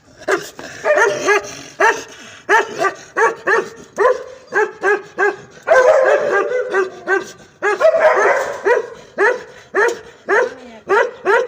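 Dog barking: a steady run of short, sharp barks, about two a second, thickening into overlapping barks about six and eight seconds in.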